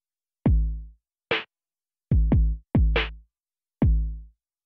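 Sparse electronic drum-machine beat for the intro music: deep kick drums that drop in pitch and ring for about half a second, with a snare hit twice between them and again at the very end, and silence between the hits.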